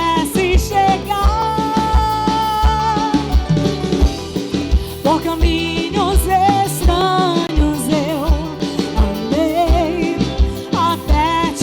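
Live band music: a steady kick-drum beat about twice a second with a wavering melody line over it.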